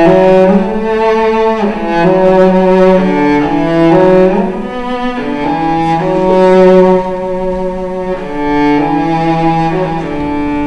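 Bowed string instruments led by a cello playing a slow melody in two parts, with long held notes that change about once a second.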